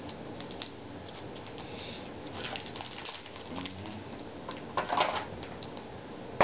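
Trading cards being handled and flipped through: light clicks and rustles of card stock, with a louder rustle about five seconds in.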